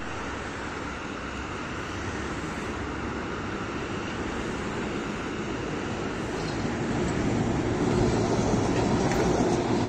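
Tram running along street rails, approaching and passing close below, its rumble and wheel noise growing louder from about seven seconds in, with road traffic alongside.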